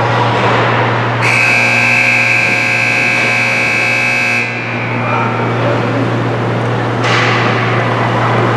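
Arena scoreboard's end-of-period horn sounding one steady tone for about three seconds, starting about a second in as the period clock reaches zero, then cutting off.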